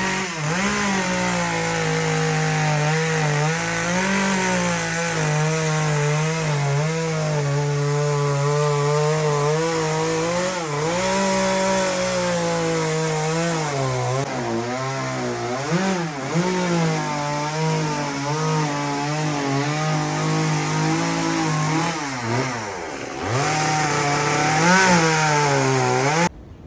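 Two-stroke chainsaw running hard while carving wood, its engine pitch rising and sagging constantly as the chain bites and frees, with a few brief deeper dips in speed. It stops abruptly near the end.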